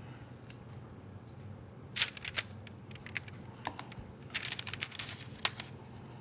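Metal spoons clicking and scraping against a ceramic mixing bowl while scooping thick cookie dough: scattered sharp clicks from about two seconds in, with a quick run of them a little past halfway.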